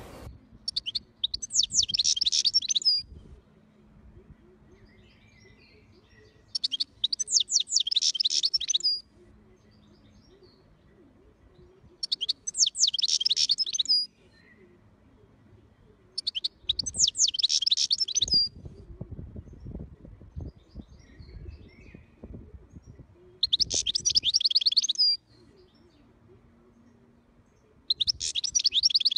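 European goldfinch singing: six short bursts of rapid twittering trills, each about two seconds long and a few seconds apart, the last cut off at the end.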